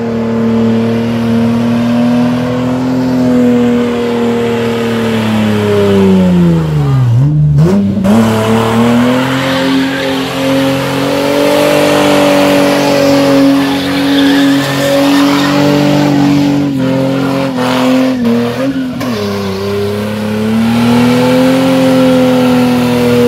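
A car doing a skid: its engine held at high revs while the tyres spin and squeal. The revs drop sharply about seven seconds in and climb straight back, with a smaller dip near the end.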